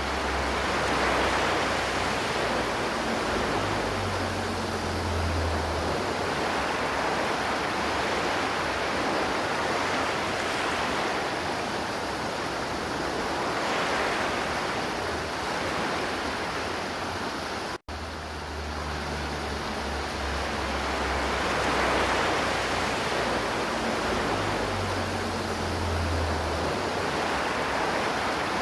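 River water flowing in a steady rush that swells and eases gently every few seconds. The sound cuts out for an instant about two-thirds of the way through.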